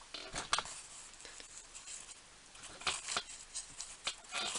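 Faint, scattered clicks and short scrapes of small metal tools and parts being handled at a workbench, with a louder scraping stretch near the end.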